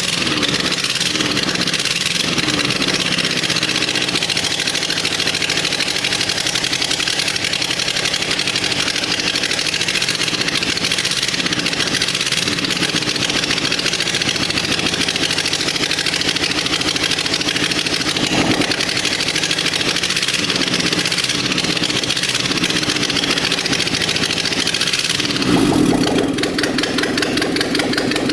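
Rebuilt Suzuki F10A four-cylinder engine running on its first start, at idle with its speed wavering now and then. About 25 seconds in it revs up and settles into a faster, steadier run.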